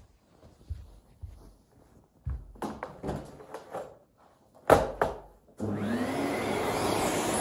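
Scattered knocks and clatter as a Vorwerk Tiger vacuum cleaner's floor nozzle and hose are handled, with one sharp knock near the middle. About three-quarters of the way in the vacuum's motor switches on, rising in pitch as it spins up, then running steadily.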